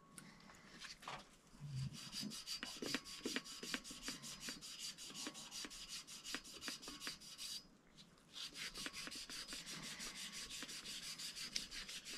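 Rapid, even back-and-forth scrubbing strokes of a copper pipe being scoured clean by hand, which is the preparation of the joint for soldering. The strokes pause briefly about two thirds of the way through, then carry on.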